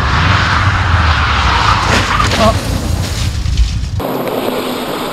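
Subaru Impreza GC8's EJ20 flat-four boxer engine running hard as the car slides along a wet track, with the uneven-firing 'doko-doko' boxer rumble. About four seconds in, the deep rumble cuts off abruptly and a thinner engine sound from inside the cabin takes over.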